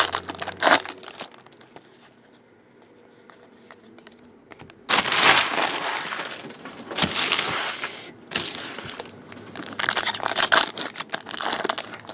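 Plastic trading-card pack wrappers crinkling and tearing as packs are handled and opened by hand. It comes in bursts, with a quieter stretch from about one to four and a half seconds in.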